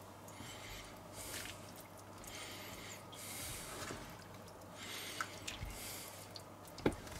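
Wooden spoon stirring meat strips into a thick stew in a cast-iron Dutch oven: soft wet squelching strokes about once a second, with a single knock near the end.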